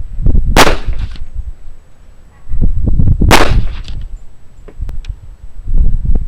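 Two pistol shots from a .45 ACP Springfield Armory 1911, about two and a half seconds apart, each with a short echo, and another shot right at the end.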